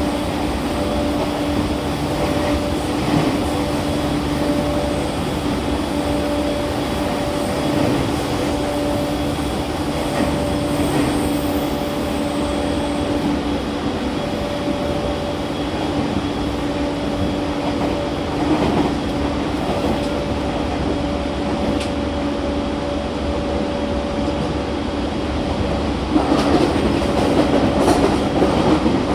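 Running sound inside a JR East E231-1000 series electric train at speed: a steady traction-motor hum over wheel and track noise. The rail noise and clatter grow louder for the last few seconds.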